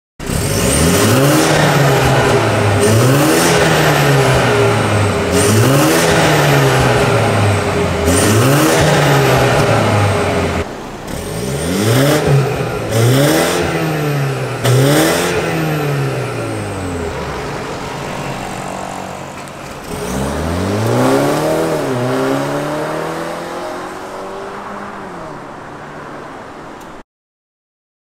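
BMW 330e's B48 2.0-litre turbocharged four-cylinder, breathing through a catless downpipe, revved again and again. There are four long revs whose pitch climbs and falls, then a run of quick blips with sharp cracks as the throttle closes, and a last rev that sinks slowly back down.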